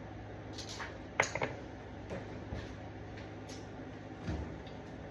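Kitchen handling sounds: a few sharp clicks and light knocks, the loudest about a second in, and a dull knock near the end, as containers and utensils are moved about.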